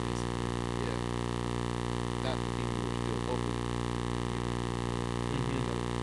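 Steady electrical hum, a buzz with many evenly spaced overtones, running at an even level. Faint, indistinct voices come through briefly a few times.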